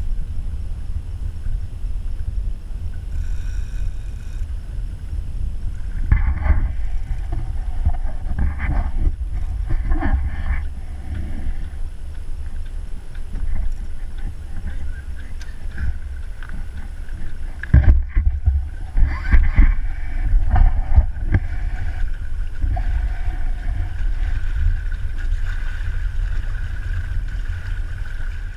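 Wind buffeting the microphone of a camera on the deck of a sailboat under sail, a continuous low rumble, with water washing along the hull. The gusts grow louder about two-thirds of the way through.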